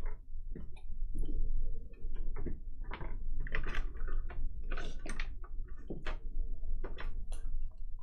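Irregular clicks, taps and knocks of metal and plastic parts being handled and fitted, as the handlebar end of an indoor cycling bike is assembled.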